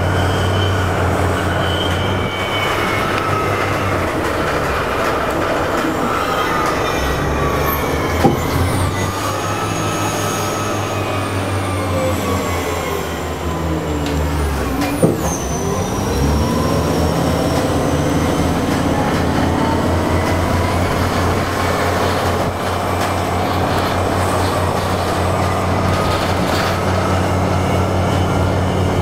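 Inside the cabin of an ElDorado National EZ Rider II BRT bus with an ISE gasoline-electric series-hybrid drive: the electric drive whines over a steady low hum. Its pitch falls as the bus slows about halfway through, then rises again as it picks up speed. There are two short sharp knocks, one a little over a quarter of the way in and one about halfway.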